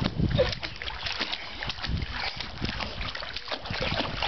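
Pool water splashing and sloshing as a small child paddles with her arms while floating in a foam noodle ring, in irregular small splashes.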